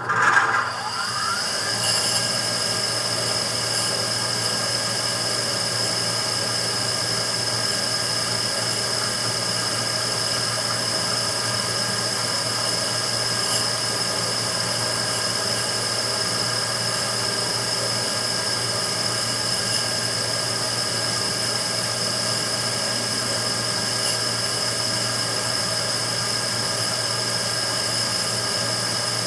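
Immersion-tube burner starting up abruptly and then running steadily, a high whine over a low hum. This is the abnormal noise the burner is recorded for.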